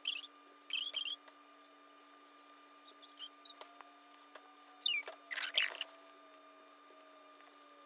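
Plastic Megaminx puzzle being twisted by hand: short bursts of clicking and rattling as its faces are turned, the loudest a little past halfway.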